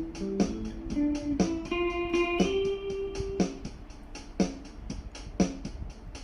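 Epiphone Les Paul Studio LT electric guitar played on a clean amp sound through a Nux Mighty 8 practice amp: a few single notes ring and die away after about three and a half seconds, over a steady backing beat with one strong hit about every second.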